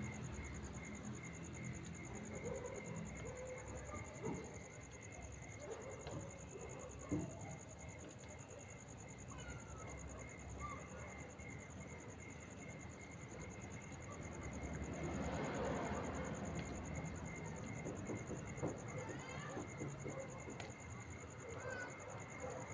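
Night insects calling: one steady high trill and a second insect pulsing at an even, quick rhythm. A few faint chirps come over them, and a wash of broad noise swells up about two-thirds of the way through.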